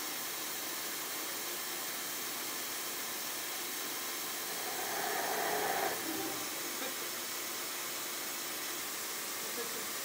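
Steady hiss of a machine-tool spindle running, with a louder metal-cutting sound for about a second, around halfway, as a 9 mm countersink cuts into F-1140 steel.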